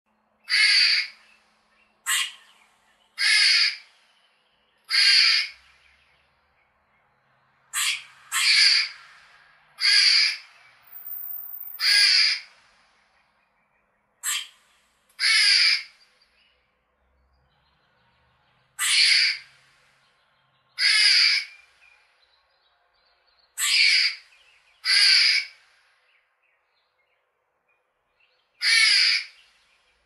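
Squirrel calling: about fifteen short, harsh calls, each roughly half a second long, repeated at uneven intervals of one to three seconds with a couple of longer pauses.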